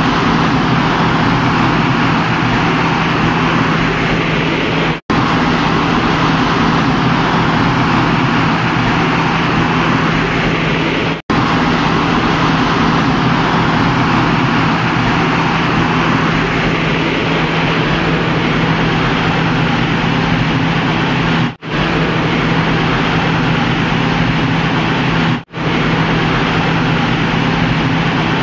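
Tata Cummins 6BTA turbocharged six-cylinder diesel engine of a generator set running loud and steady with a constant low hum, freshly overhauled and on its load trial. The sound drops out briefly four times.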